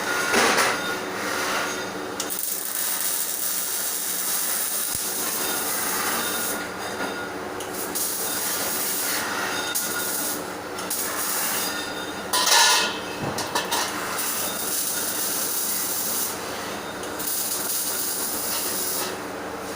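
MIG welder arc hissing and crackling in short runs of one to three seconds that stop and restart, as stitch welds are laid on steel, over a steady hum. Two louder bursts of noise stand out, one near the start and one about two-thirds of the way through.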